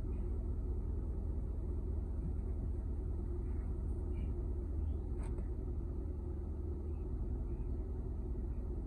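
A car running with a steady low rumble, with a single click about five seconds in.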